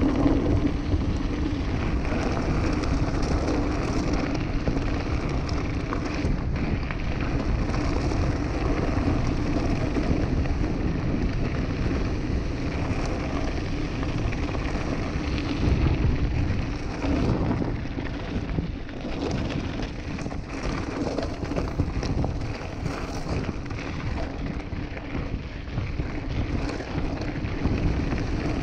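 Mountain bike rolling down a loose gravel track: tyres crunching over the gravel with many small knocks, and wind rushing over the microphone.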